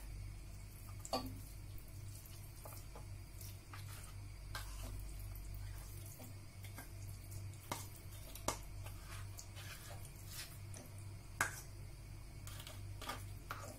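Irregular, faint clicks and soft taps of a spatula against a metal bowl and the pot as moist cooked lamb pieces are scraped out and dropped onto rice, over a steady low hum.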